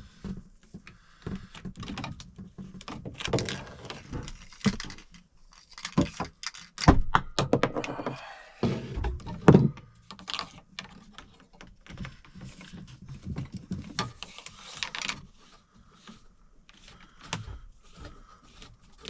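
PVC drain pipe and fittings being handled and fitted together: irregular knocks, clicks and rattles, with a few louder knocks about seven and nine and a half seconds in.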